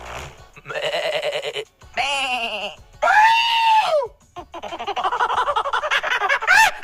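A man's voice imitating animal calls: about four separate calls, among them a quavering goat-like bleat.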